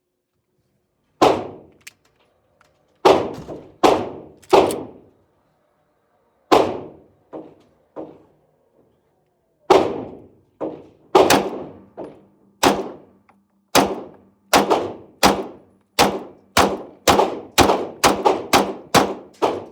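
A string of gunshots from a firearm at a shooting range, each a sharp crack with a short echoing tail. The shots are spaced a second or more apart at first and speed up to about two a second near the end, with a few fainter shots among them.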